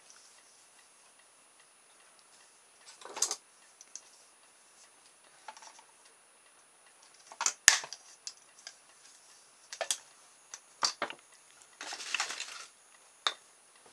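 Cutters snipping and clicking on a thin plastic trellis strip: a handful of separate sharp clicks, a second or more apart, the loudest about halfway through. A brief rustle of handling comes near the end.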